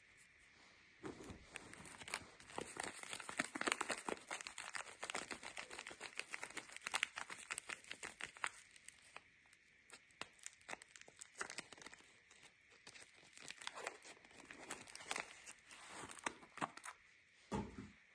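Soap packaging being unwrapped by hand: dense crinkling and tearing of the wrapper, busiest in the first half, with a few more bursts near the end.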